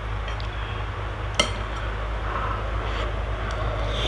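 Metal spoon clinking against a glass soup bowl while scooping broth, with one sharp clink about a second and a half in and a few lighter taps, over a steady low hum.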